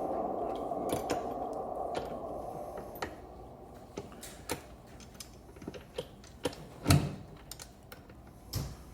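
Electric scooter wheel and hub motor being handled and set back into the scooter's frame: a rushing noise for the first few seconds, then scattered light metal clicks and knocks, with a heavier knock about seven seconds in and another near the end.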